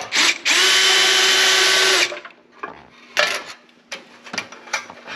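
DeWalt cordless drill/driver running steadily for about a second and a half, backing a bolt out of the small engine's cover. A few light clicks and taps of metal parts being handled follow.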